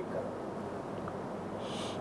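Room tone: a steady low background hiss with a faint hum, and a brief soft hiss near the end.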